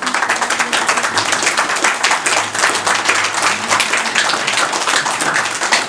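A room of people applauding: many hands clapping at once, starting suddenly and going on steadily.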